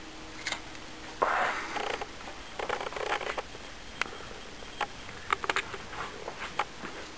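Rustling and brushing as the camera moves close along a foam rubber costume, with a louder scuffing stretch about a second in and a few sharp clicks and knocks later.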